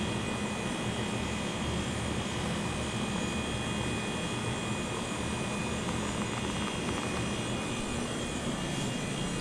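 Residential heat pump outdoor unit running steadily in its defrost cycle, with a low hum from the compressor and a few thin steady tones above it.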